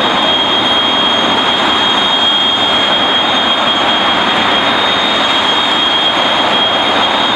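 Jet engine running: a steady, loud roar with a high whine held on one pitch.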